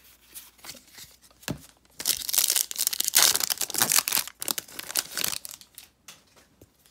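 A single tap about one and a half seconds in, then a trading card pack wrapper being torn open and crinkled for about three and a half seconds.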